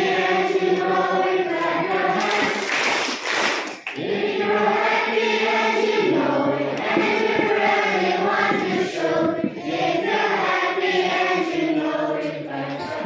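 A group of girls singing together as a choir, with a brief break between phrases about four seconds in.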